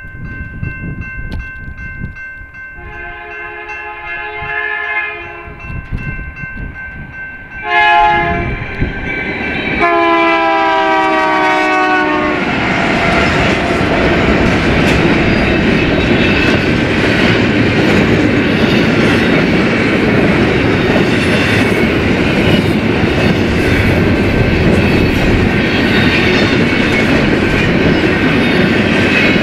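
Eastbound BNSF freight train locomotive sounding its horn in several blasts as it approaches; the last blast drops in pitch as the locomotive passes, about twelve seconds in. Then the train's cars roll by with a steady loud rumble and wheel clatter on the rails.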